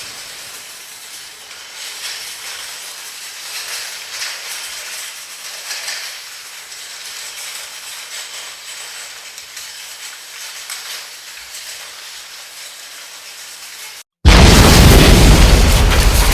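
AI-generated sound effects. A loud blast fades out, giving way to a long, steady crackling hiss. After a moment of silence, another loud blast with a heavy low rumble starts near the end.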